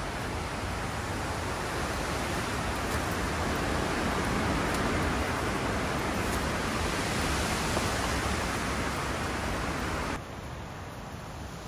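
Steady rushing noise with no clear pattern, which cuts off suddenly about ten seconds in.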